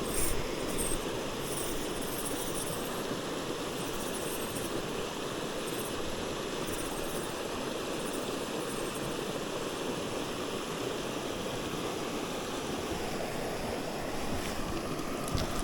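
Mountain stream water rushing steadily over rocks, an even, unbroken sound.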